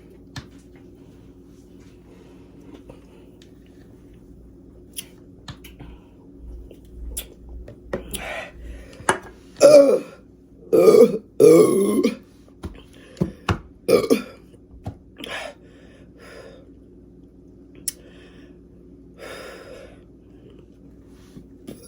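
A woman burping over and over after gulping down a bottle of Sprite, the carbonation coming back up. There are a few small burps, then three loud ones in quick succession about ten seconds in, then several smaller ones.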